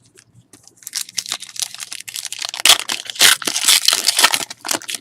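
Foil trading-card pack wrapper crinkling and crumpling, a dense run of loud crackles starting about a second in.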